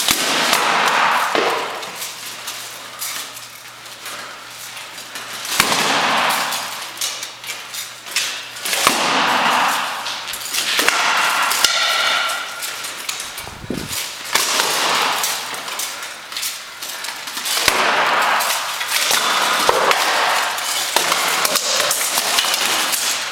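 Steel plate armour clanging and rattling as two armoured fighters spar, with irregular flurries of metal-on-metal strikes and clashes and a short metallic ring about twelve seconds in.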